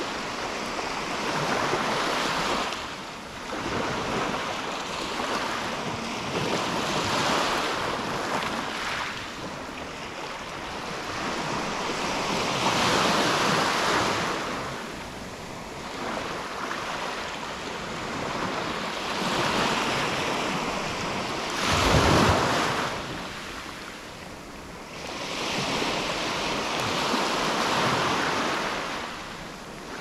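Gentle sea waves lapping and washing up a beach, each wash swelling and fading away every few seconds. The loudest surge comes about two-thirds of the way in.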